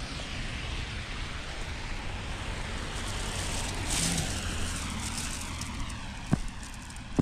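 Footsteps crunching and scuffing through deep snow, over a steady rushing noise, with a sharp click about six seconds in.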